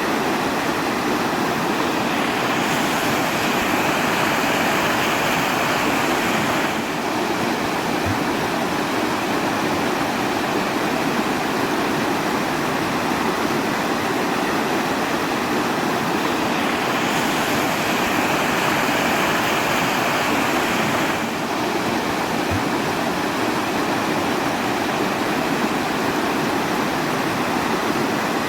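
Steady rushing water, a dense, even hiss with no speech. A brighter, hissier stretch of about four seconds comes around three seconds in and again some fourteen seconds later, each followed by a faint click, as in a looped recording.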